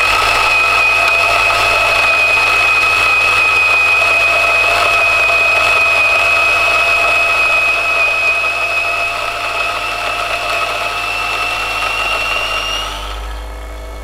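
Raccea 60 mm flat-burr electric coffee grinder (BZ500B) grinding coffee beans, its motor giving a steady high whine over the burrs' grinding. Near the end the whine rises slightly, then stops, leaving a low hum.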